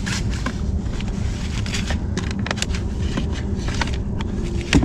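Small clicks and rustles of wires and clips being handled and fastened at a car battery's terminals, with a sharper click near the end, over a steady low hum.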